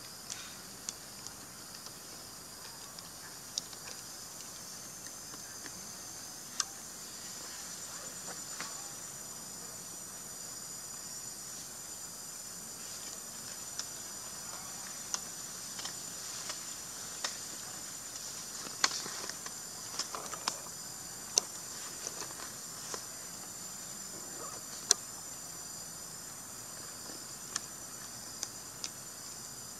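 Insects buzzing in a steady, high, even chorus, with scattered sharp clicks over it.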